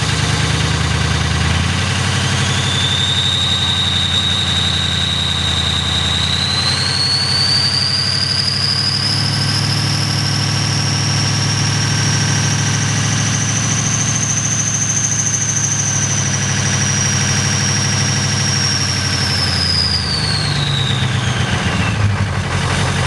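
Ford 6.0L Power Stroke V8 diesel held at raised revs on a cold start, with injectors that the owner calls bad. Its engine note steps up twice and a high turbo whine climbs in pitch with it, then both fall back toward idle near the end.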